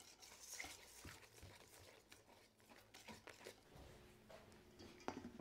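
Near silence with faint, scattered kitchen handling noises: a few soft clicks and light scrapes of utensils and dishes.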